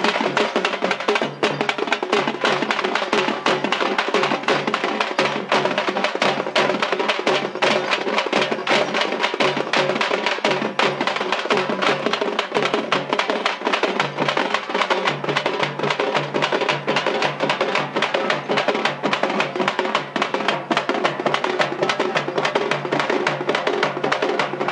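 A troupe of Tamil parai frame drums, struck with sticks, together with a barrel drum, playing a fast, unbroken rhythm of dense strokes.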